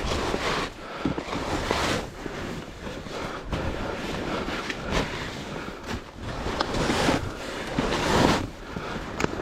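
Gusty wind buffeting the microphone, a rushing noise that swells and fades, loudest at the start and again about eight seconds in.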